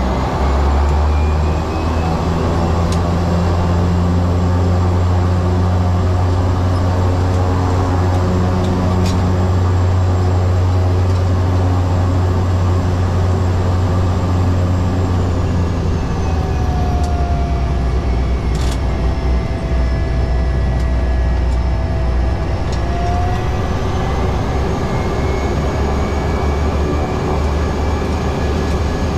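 Cessna 208B Caravan's Pratt & Whitney PT6A turboprop and propeller droning steadily in flight. A deep hum with thin whining tones above it that slowly drift up and down in pitch; the deep hum drops slightly about halfway through.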